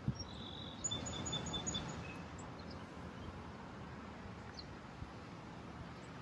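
A bird chirping: a quick run of about five short high chirps about a second in. Under it is the low steady hum of a car creeping forward.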